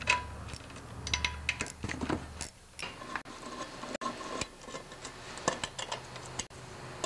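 A hand nut driver working the bolts out of a Briggs & Stratton OHV engine's valve cover, making a run of light metallic clicks and ticks.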